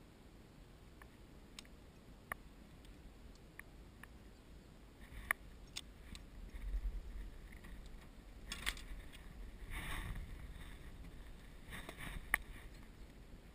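Quiet water sounds close by: a few soft sloshes and splashes through the middle, with scattered faint clicks.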